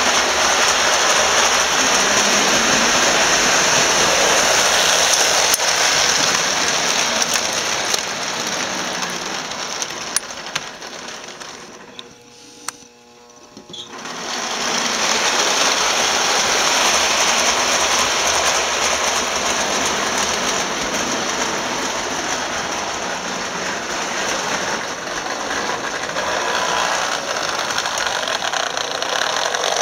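Vintage Marx tinplate electric toy train running on three-rail track: a steady, busy whir and clatter of the motor and wheels. The sound fades down about twelve seconds in and builds back up a couple of seconds later, as the train comes back around toward the dock.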